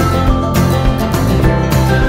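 Background music: an instrumental track with sustained notes playing steadily.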